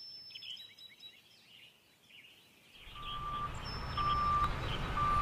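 Faint birds chirping. About three seconds in, a vehicle's reversing alarm starts beeping about once a second, a single steady tone over a rising engine rumble.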